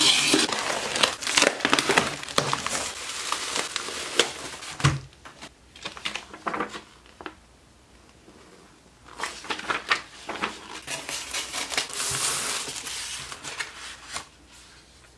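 A taped cardboard shipping box being opened by hand: the tape slit with a cutter and the cardboard flaps pulled and scraped, in irregular scrapes, crackles and clicks. After a short pause, paper crinkles and rustles for a few seconds as a folded paper sheet is handled.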